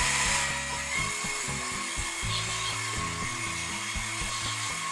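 Electric hand mixer running steadily, its twin wire beaters whipping eggs, sugar and honey into a foam.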